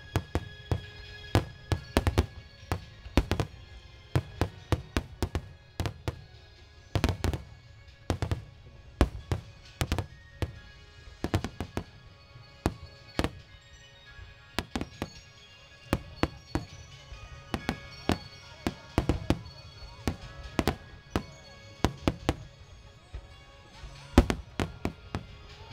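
Starmine fireworks display: shells bursting in rapid, irregular succession, about one to three sharp bangs a second, with music playing underneath.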